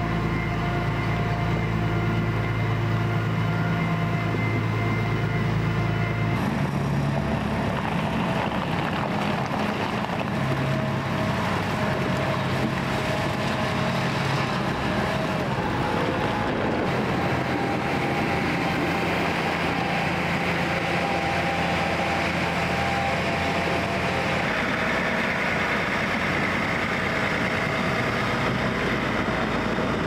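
Diesel engine of a John Deere row-crop tractor running steadily while it moves a large planter at low speed; the engine note shifts about six seconds in.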